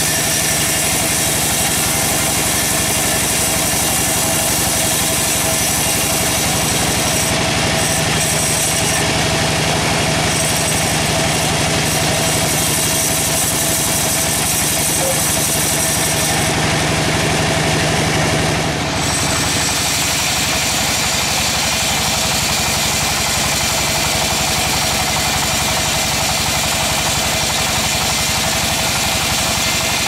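Band sawmill running with its blade cutting through a hard jamblang (Syzygium cumini) log, a steady machine drone with a high hiss. The sound changes abruptly about two-thirds of the way through.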